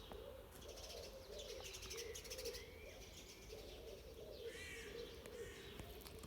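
Dawn bird chorus, faint: songbirds chirping and trilling high up, over a lower call repeated again and again.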